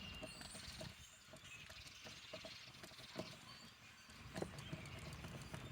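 Quiet background: a faint low rumble with scattered light clicks and taps.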